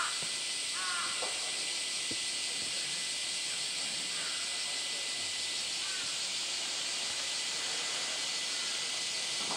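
Dense, steady chorus of summer cicadas, a continuous high hiss that does not change, with a few short faint high calls in the first second.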